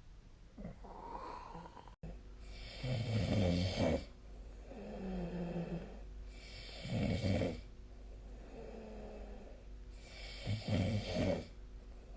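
A person snoring in sleep: three loud snores about four seconds apart, each followed by a quieter breath with a low hum.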